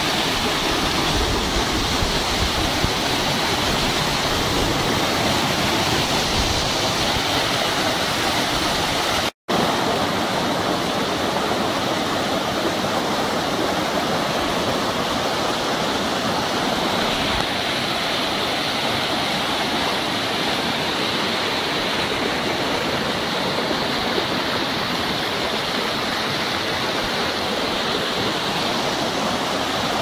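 Waterfall water rushing steadily over boulders in a loud, even roar of white water, cutting out for an instant about nine seconds in.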